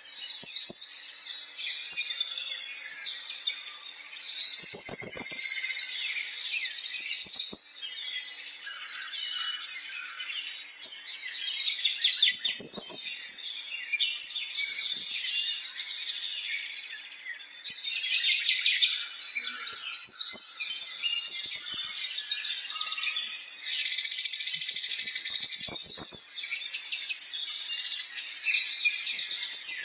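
Many small birds chirping and twittering at once, a dense, continuous chorus of rapid high chirps, with a few brief low knocks.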